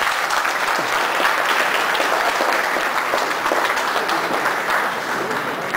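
An audience applauding: a dense, steady spell of clapping that starts to die down near the end.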